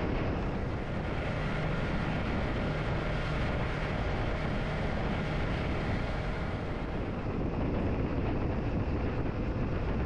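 Suzuki V-Strom 250 motorcycle riding along, its engine running steadily under wind noise.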